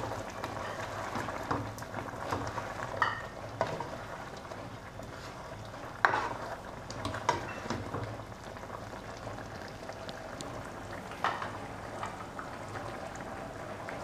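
Spatula stirring beef curry and korma masala in a non-stick karahi, with occasional sharp scrapes and taps against the pan over a steady simmering sizzle.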